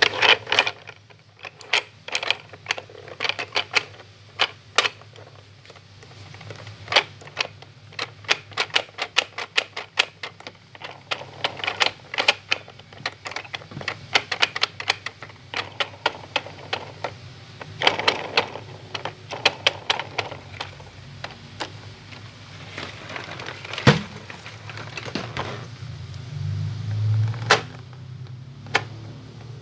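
Hard plastic toy parts on a baby walker's play tray clicking and rattling as they are turned and pressed by hand: many sharp clicks at an uneven pace, sometimes in quick runs.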